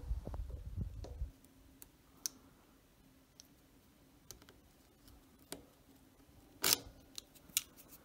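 Pliers clicking against a bicycle chain's master link as it is worked to unclip it: a low handling rumble at first, then scattered sharp metal clicks, the loudest about two-thirds of the way in.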